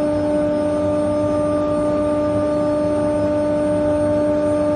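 The 3.2 kW spindle of a 1325 CNC router running with a steady, even whine.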